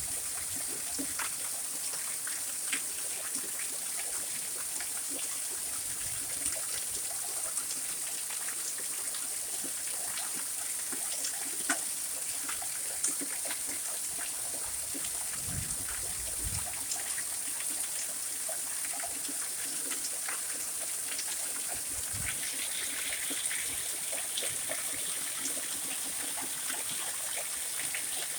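Heavy rain falling steadily in a thunderstorm, an even hiss with scattered drops ticking close by and a few dull thumps.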